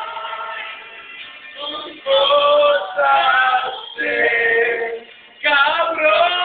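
Men singing loudly in Spanish-style vocal phrases of one to two seconds, broken by short pauses.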